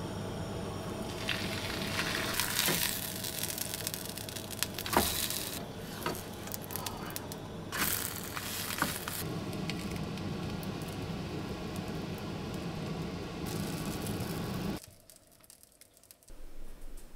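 Flatbread sizzling in a frying pan on a gas stove, over a steady low hum, with several louder hissing spells and a few clinks and scrapes of tongs and fork as it is turned. The sound cuts off suddenly near the end.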